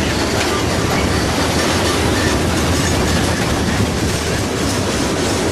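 Freight train rolling past at track side: a steady, loud rumble with wheels clicking over the rail, the clicks coming regularly near the end.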